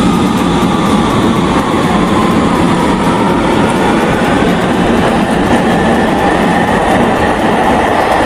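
Orange Line electric metro train moving along the underground station platform behind the glass screen doors: a loud, steady running noise with a faint steady whine.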